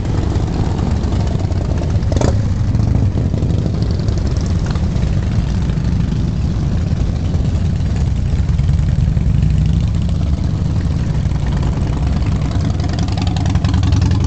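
Several V-twin cruiser motorcycles, Harley-Davidsons among them, riding past with a steady deep engine note from many bikes at once. There is a brief sharp sound about two seconds in. Near the end it grows louder as another bike passes close.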